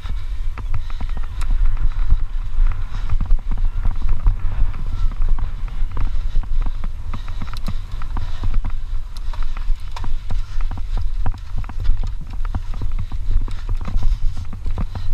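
Mountain bike ridden fast over a dry, rough dirt trail: a dense, irregular rattling and clattering of the bike and camera over bumps and loose dirt, over a steady heavy wind rumble on the action camera's microphone.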